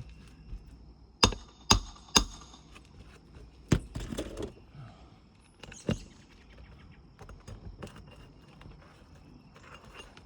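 Sharp metal knocks from hand tools, a hammer and pry bar, working roofing nails loose under an asphalt shingle. Three knocks come in quick succession about a second in, then two more spaced a couple of seconds apart.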